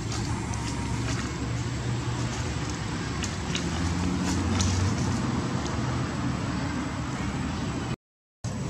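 Steady outdoor background rumble and hiss with a low hum, broken by a few faint clicks. The sound cuts out completely for about half a second near the end.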